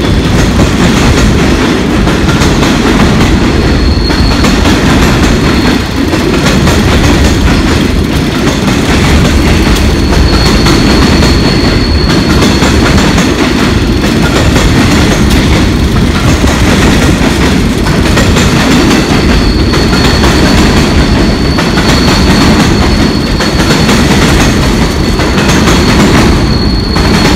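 A long freight train of EWS bogie hopper wagons rolling past: a loud, steady rumble and clatter of wagon wheels on the rails. A thin, high wheel squeal comes in about four seconds in and holds for most of the rest.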